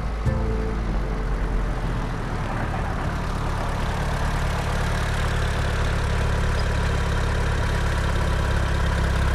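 A BMW E30 3 Series car's engine running steadily as the car approaches on a dirt track. It grows gradually louder as the car nears and pulls up.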